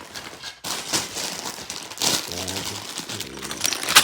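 Sealed plastic bags of Lego pieces being handled and sorted: the plastic crinkles and the loose bricks inside rattle and click.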